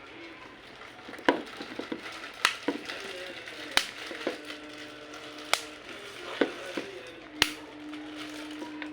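A series of sharp clicks and taps, about six loud ones spread unevenly over several seconds with smaller ticks between, over a faint steady hum.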